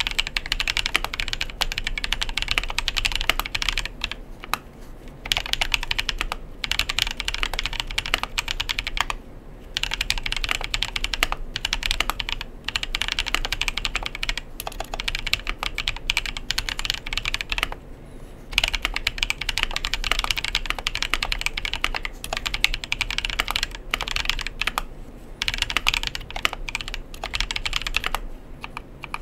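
Typing on a KBDfans 60% custom mechanical keyboard with lubed Tecsee Neapolitan Ice Cream tactile switches (POM stems, Krytox 105 lube) and White Pudding keycaps: fast runs of keystrokes broken by several brief pauses.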